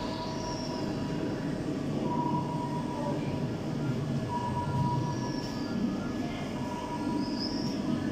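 Steady low rumbling room noise, with a short steady high tone that sounds for under a second about every two seconds.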